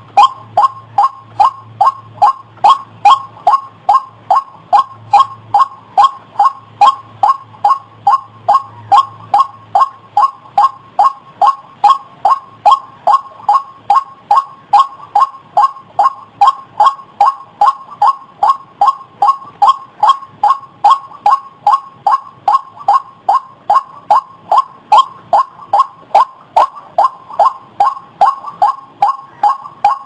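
White-breasted waterhen calling its monotonous 'ruak-ruak': short harsh notes repeated evenly, about two to three a second, without a break.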